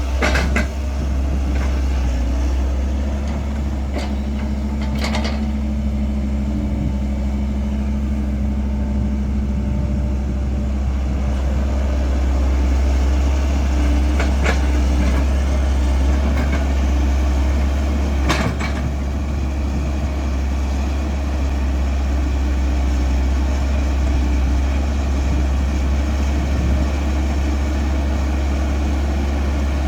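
Diesel engine of a Caterpillar 312 excavator running steadily at work, with a deep low rumble and a few sharp knocks.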